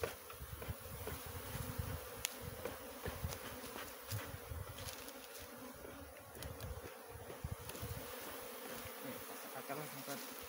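Many honeybees flying around an exposed colony, a steady buzzing hum of the swarm.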